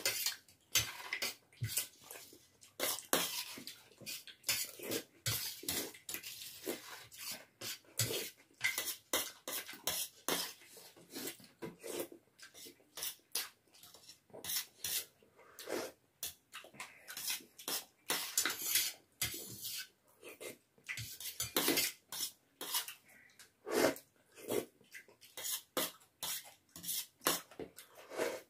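Metal forks and spoons clinking and scraping on stainless steel plates in a rapid, irregular run, with slurping and chewing of noodles.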